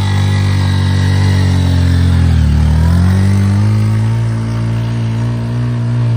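Motorcycle engine labouring up a steep slope under a heavy load of about 500 kg of cement. Its pitch sags about two and a half seconds in, then climbs back and holds steady.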